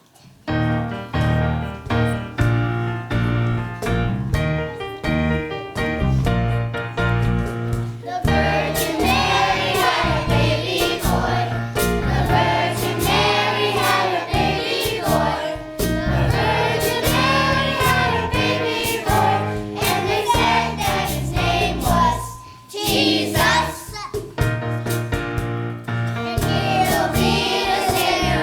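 Live band playing a song, with a choir starting to sing about eight seconds in.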